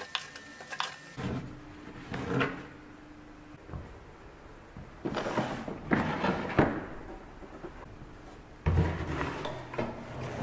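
Things being handled on a wooden workbench: a plastic tool case and a board being shifted and set down. Irregular knocks, scrapes and clatter come in several bursts, the loudest in the middle and again near the end.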